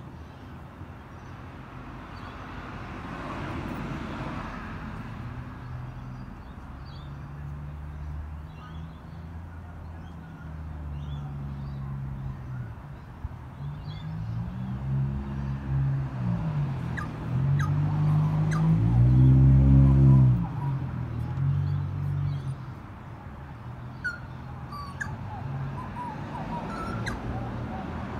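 Outdoor background: a low pitched hum that shifts pitch in steps and swells to its loudest about twenty seconds in, then drops away, with faint bird chirps scattered through.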